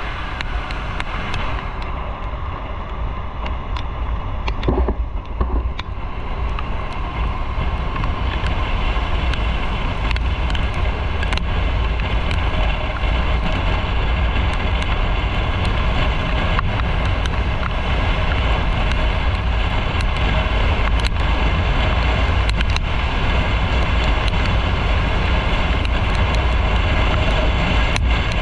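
Motorcycle on the move, heard from an onboard camera: steady wind rush on the microphone with engine and road noise. It grows louder over the first several seconds, then holds steady.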